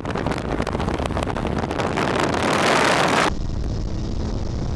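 Millyard Viper motorcycle's 8-litre Dodge Viper V10 running hard, a dense rapid engine pulse growing louder. About three seconds in the sound changes abruptly to a steadier engine note at speed with wind noise on the microphone.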